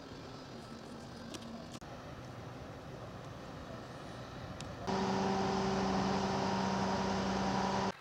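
Large mobile crane's engine running steadily, faint at first. About five seconds in it comes in suddenly much louder, with a steady fixed-pitch hum over the engine noise, and cuts off abruptly just before the end.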